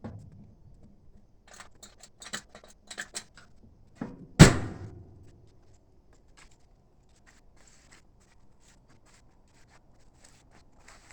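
Parts of an old 1930s Magic Chef gas stove being handled: a few light metal clicks and knocks, then one loud metallic clang about four seconds in that rings briefly, like a metal door or lid shutting.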